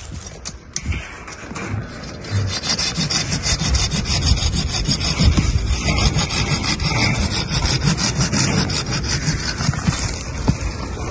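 Saw cutting through a tree branch with steady back-and-forth rasping strokes, weaker for the first couple of seconds and then even.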